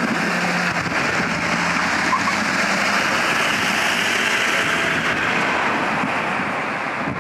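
Road traffic passing close by: a steady rush of tyre and engine noise that swells and then eases off toward the end. No separate firework bangs stand out.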